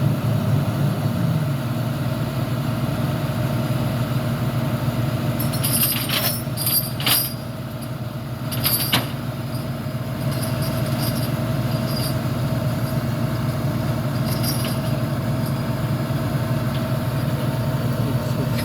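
Heavy diesel engine running steadily, with a few short, sharp hissing clicks in the middle.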